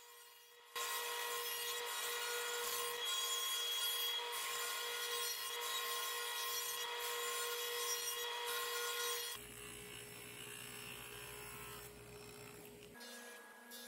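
Table saw ripping thin mahogany strips: a steady motor tone under the hiss of the blade cutting. About nine seconds in, it gives way to a quieter, lower hum.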